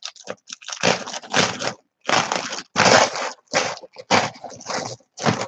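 Clear plastic packaging bag crinkling and rustling as it is handled and pulled open, in a string of irregular bursts, loudest about three seconds in.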